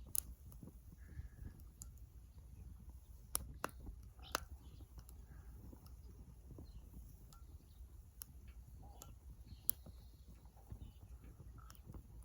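Small wood fire crackling: scattered sharp pops over a low rumble.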